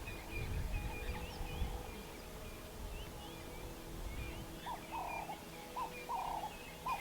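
Wild birds calling: scattered short chirps and whistles throughout, with a run of short, lower calls in the second half.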